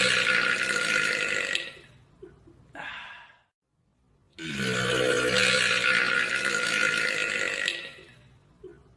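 Men belching: a long, loud burp ending a couple of seconds in, a brief quieter sound, then a second long burp starting about four seconds in and lasting about three seconds.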